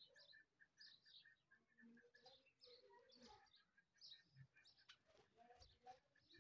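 Faint bird calls: scattered high chirps, and a quick even run of short notes at about five a second that stops about two seconds in.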